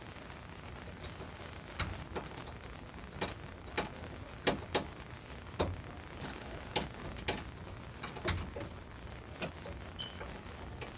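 Ratchet socket wrench clicking in short, irregular strokes, with a few quick runs of clicks, as a 5/16 socket loosens a fastener on a tankless water heater.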